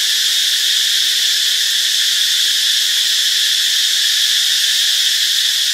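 Cicadas buzzing: a loud, steady, high-pitched drone that never breaks or changes.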